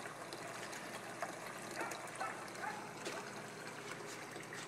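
Water trickling steadily down a mini sluice as gold concentrates are washed through it, faint.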